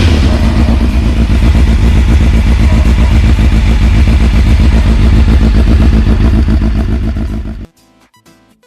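Honda CBF600 inline-four idling steadily through an HP1 Dominator aftermarket exhaust with its dB killer fitted. The sound cuts off abruptly near the end.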